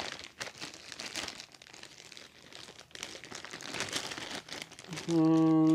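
Clear plastic bag holding a diagnostic adapter cable being handled, crinkling and rustling irregularly. Near the end, a man's voice holds a steady, loud 'hmm'.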